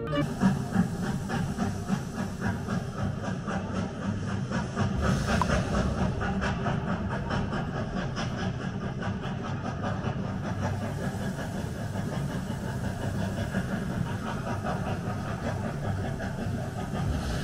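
Steam train sound effect played through the exhibition's speakers: hissing steam over the rhythmic clatter of wheels on the rails.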